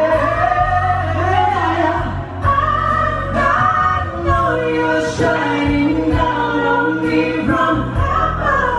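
A woman and a man singing a song into microphones over backing music, with the woman's voice holding long notes.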